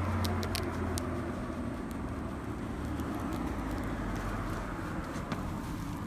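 Suzuki Choinori scooter with a swapped-in Suzuki Bandit 250 V inline-four engine, running on the move with wind noise. The engine hum eases off about a second in, and a few faint clicks sound.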